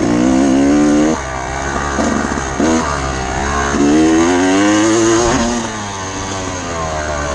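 Off-road motorcycle engine under hard throttle, its pitch climbing and then dropping several times as the rider accelerates, shifts and backs off over rough ground.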